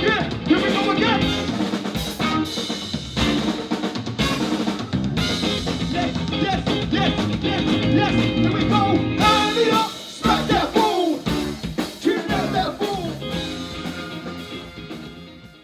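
Live band music with the drum kit to the fore: snare rimshots and bass drum under the other instruments, fading out near the end.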